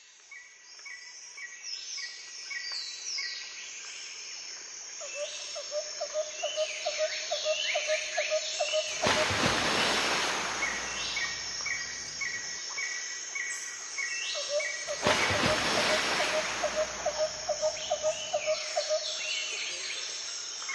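Several birds calling outdoors: repeated short chirps, quick downward-sweeping whistles, and a fast trill that comes twice. Two swells of rushing noise, each a few seconds long, rise over the birds in the middle.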